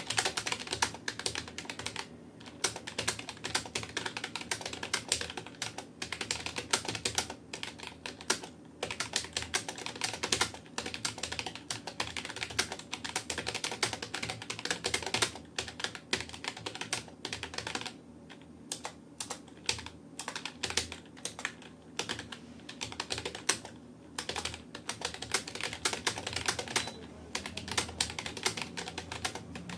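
Fast touch-typing on a Rapoo computer keyboard at about 65 words per minute: a rapid, continuous stream of key clicks broken by brief pauses.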